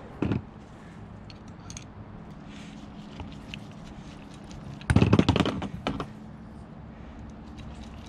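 Light clicks and taps of small carburetor parts and tools being handled on a work mat, with a short knock near the start and a louder clatter about five seconds in.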